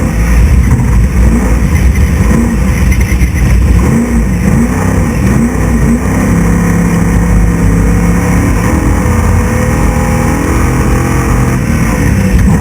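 Class 6100 off-road race truck's engine driven hard, its revs rising and falling repeatedly for the first half, then holding fairly steady from about halfway, over a constant rushing noise.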